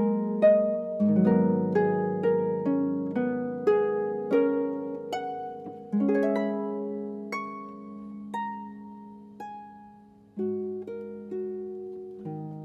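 Solo harp playing plucked notes and chords that ring on and fade. The notes come in a quick run at first, then thin out to single notes about a second apart. About ten seconds in, a strong new chord enters.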